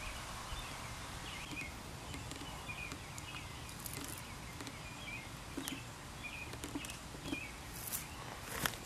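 Faint, scattered chirps of small birds over a steady background hiss, with a few soft clicks.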